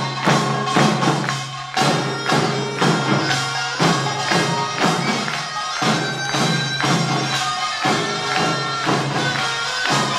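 Korean pungmul band playing pangut: a reedy taepyeongso (Korean shawm) melody over a fast, regular beat of drums and small metal gongs.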